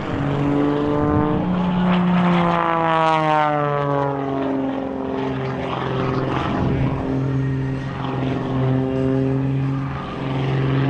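Propeller airplane engines droning overhead, with one aircraft passing by about two to four seconds in, its pitch falling as it goes.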